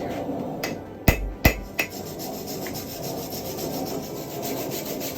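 Three sharp knocks about a second in, then a fast, even run of scraping strokes, about four or five a second, as a hand tool scrapes a freshly forged iron piece clean. A steady low rumble runs underneath.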